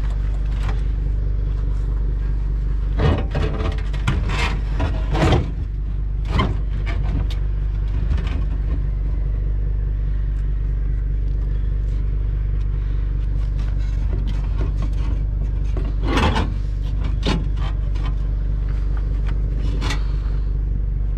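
A pickup truck's engine idling steadily, with scrapes and metal knocks as scrap is shifted and loaded into the truck bed. The knocks are loudest about three to five seconds in and again around sixteen seconds.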